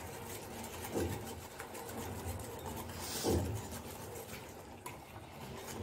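Hand whisk beating yogurt and spice powders in a glass bowl: rapid, repeated scraping strokes against the glass.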